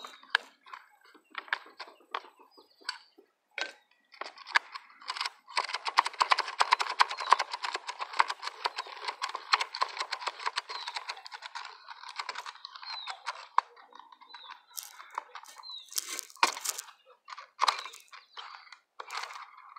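Nylon trimmer line being wound by hand onto a string trimmer's plastic spool head: rapid clicking and rustling of line over plastic, densest from about five seconds in to about twelve, with scattered clicks and handling knocks around it.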